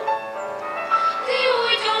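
Children's vocal ensemble singing a song in unison with accompaniment, holding sustained sung notes.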